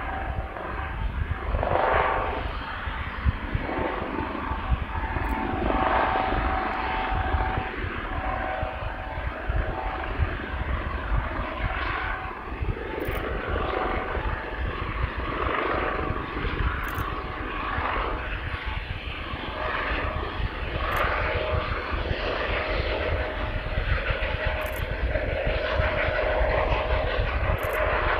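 Eurocopter Dauphin police helicopter with a fenestron tail rotor in flight: continuous turbine and rotor noise with a steady whine over a heavy low rumble that swells and eases every couple of seconds.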